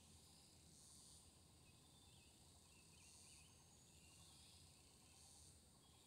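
Faint rural ambience: insects buzzing high-pitched, swelling and fading every second or two, with a few soft bird chirps about two to four seconds in.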